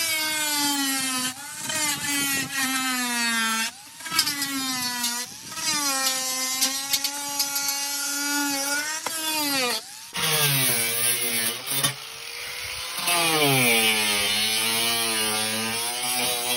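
Angle grinder cutting into an old washing machine's body, its motor whine sagging in pitch as the disc bites and rising again as it eases off. The grinding breaks off briefly twice, about four seconds in and again around ten seconds.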